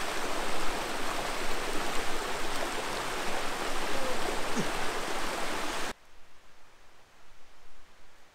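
Steady rush of a flowing forest stream, which cuts off abruptly about six seconds in and leaves only a faint background.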